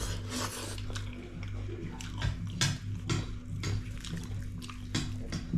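Close-up wet eating sounds: chewing and slurping mustard greens in a thin broth, with irregular wet smacks and clicks. A steady low hum runs underneath.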